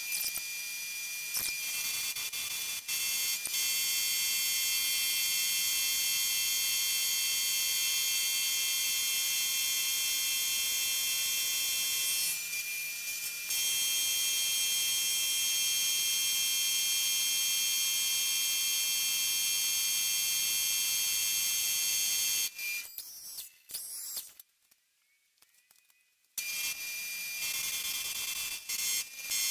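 Mill-drill with an insert end mill cutting a flat into a 4140 steel bar: a steady high-pitched whine made of several ringing tones. It drops out for about two seconds shortly before the end.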